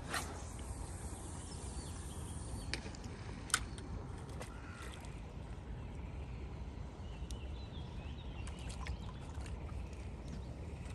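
A baiting-rod cast: the whoosh of the rod, then line hissing off the spinning reel's spool for about two and a half seconds. A few sharp clicks follow, the loudest about three and a half seconds in, and faint ticks come near the end.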